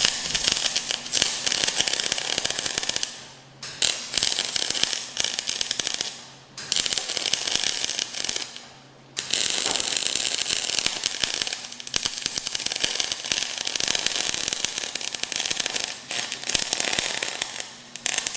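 Lincoln electric welder's arc crackling and sizzling in continuous welding runs on heavy steel, stopping briefly three times between runs and cutting off near the end, with a steady low hum underneath.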